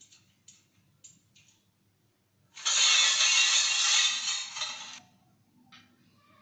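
Dishes and the wire rack of an open dishwasher rattling and scraping: a few light clinks, then a loud clatter lasting about two seconds.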